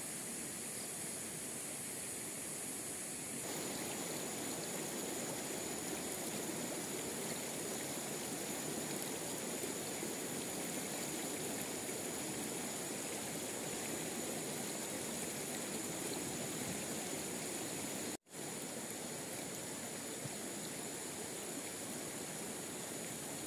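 Shallow rocky stream flowing: a steady rush of water that grows louder a few seconds in, with a thin, steady high-pitched whine over it. The sound cuts out for an instant about three-quarters of the way through.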